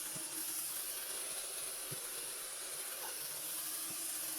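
Vacuum cleaner running steadily, sucking dust and debris out of a speaker cabinet: an even hiss over a steady hum, with a few light taps of the nozzle.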